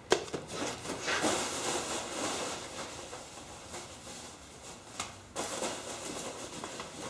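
Rummaging through packing material in a cardboard shipping box: steady rustling and rattling, with a sharp knock just after the start and another about five seconds in.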